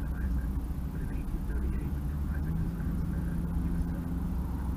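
Car driving, heard from inside the cabin through a windshield-mounted action camera's microphone: a steady low rumble of road and engine noise, with a steady low hum joining about halfway through.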